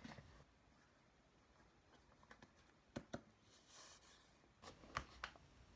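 Faint clicks and handling noise from a plastic squeeze bottle of glue being opened and tipped: two clicks about three seconds in, a brief soft hiss, then a few more clicks near the end.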